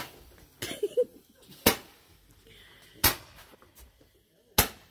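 Roman candles firing: four sharp pops about a second and a half apart as the balls are shot out.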